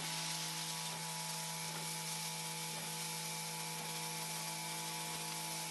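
Ryobi 1500 PSI battery-powered pressure washer running in power boost mode, self-priming from a bucket: a steady electric pump hum under the hiss of the turbo nozzle's spray.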